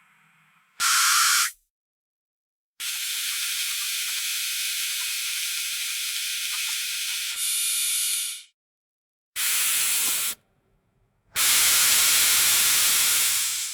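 Dental air-water syringe spraying in four hissing bursts: a short one, then a long one of about five seconds that turns louder near its end, then a one-second burst and a two-second burst that tails off.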